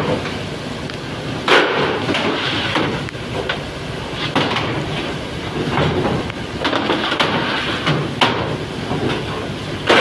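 Metal freezer trays banged on a steel table to knock out frozen fish blocks, several sharp bangs at irregular intervals over the steady din of fish-processing machinery.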